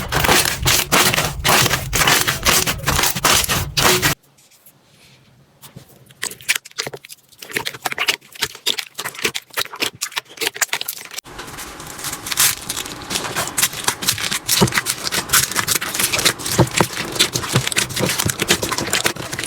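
Slime being squeezed and pressed, giving a rapid run of crackling, clicking pops; the crackle drops to a few quiet clicks about four seconds in and comes back dense and steady at about eleven seconds.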